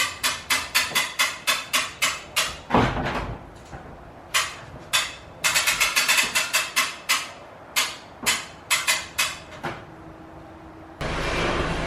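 Rapid runs of sharp ratchet-like clicks, about four to five a second, stopping and starting several times. Near the end they cut to a steady road and engine noise.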